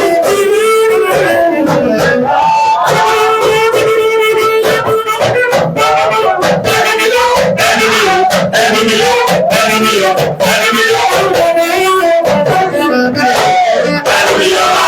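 Loud music: a melody over a percussive beat.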